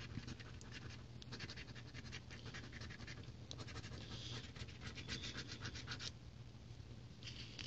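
A coin scraping the scratch-off coating from a paper lottery ticket: runs of quick back-and-forth rasping strokes that stop about six seconds in.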